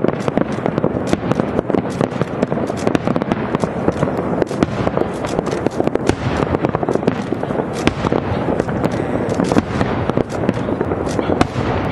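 Aerial fireworks display, many shells bursting in rapid succession: a dense, unbroken string of sharp bangs and crackling.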